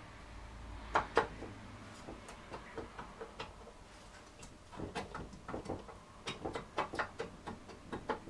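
Light metal clicks and knocks from engine parts being handled and fitted by hand. There are two sharper clicks about a second in, then a run of small, irregular clicks in the second half.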